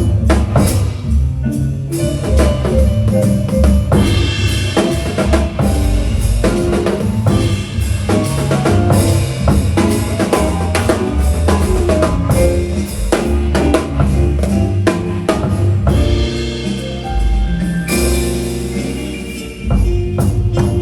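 Drum kit played in a busy groove, with bass drum, snare hits and rimshots and cymbals, over other pitched music with a low bass part.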